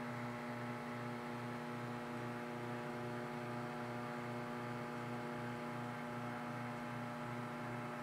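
Emerson microwave oven running: a steady electrical hum with a light, even pulsing underneath.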